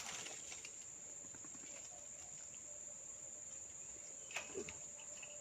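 Insects chirring in a steady, high-pitched drone, with one brief knock about four seconds in.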